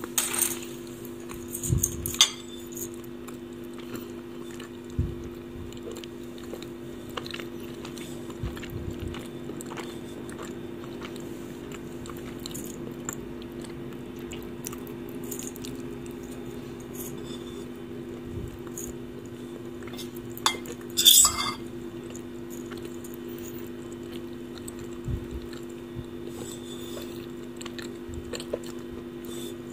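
Metal fork clinking and scraping against a ceramic bowl, with a louder clatter about 21 seconds in, and soft chewing. A steady low hum runs underneath.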